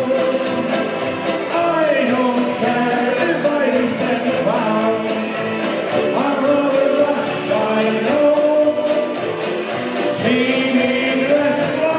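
A group singing a song together to several banjo-ukuleles strummed in a steady, quick rhythm.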